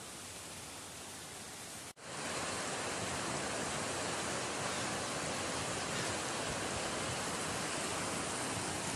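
Swollen mountain stream rushing over and around boulders in a steady roar of water. About two seconds in, the sound drops out for an instant and comes back louder.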